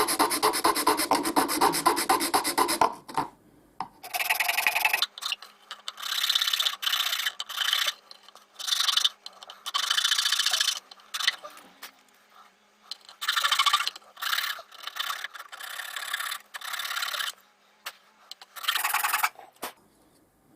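Hand file rasping back and forth, filing a square hole in a caravan socket blanking plate out to its corners: a fast unbroken run of strokes, then several shorter bursts of filing with pauses between them.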